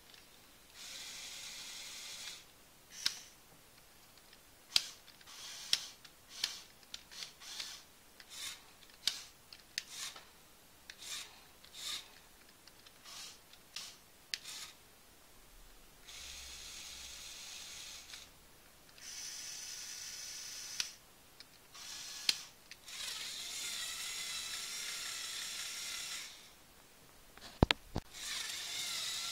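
LEGO Technic Power Functions electric motors whirring through the forklift model's gears in several high-pitched runs of one to three seconds each. A run of sharp clicks and short whirs comes between them, and a sharp knock near the end.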